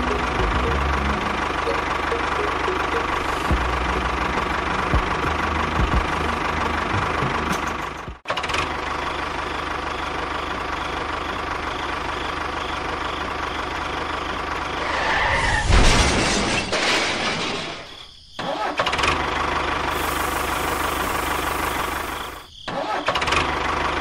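A tractor-type engine running steadily, with a dense even tone. It cuts out sharply three times, about 8, 18 and 22 seconds in, and picks up again each time.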